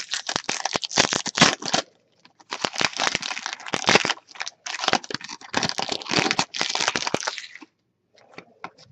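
Hockey card pack wrapper crinkling and tearing as a pack is opened, in three stretches of crackling with short pauses between, then a few faint clicks near the end.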